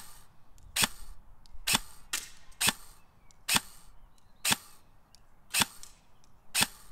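Custom KWA KM4 electric airsoft rifle firing single shots: about nine sharp cracks, spaced roughly a second apart.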